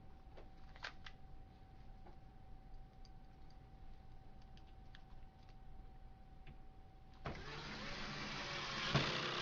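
Electric screwdriver's motor running for about two seconds, driving a screw into the printer's plastic cover, ending in a sharp click. A few faint clicks and taps of handling come before it.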